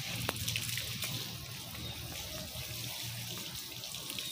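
Water from a garden hose spraying and splashing steadily over a wet German Shepherd's coat as it is bathed.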